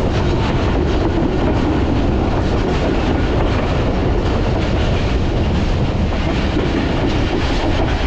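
Passenger train running steadily, heard from on board: a constant rumble of the wheels on the rails with light clicks running through it.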